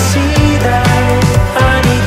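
Background music: a pop-electronic track with a steady drum beat, deep bass and pitched synth lines.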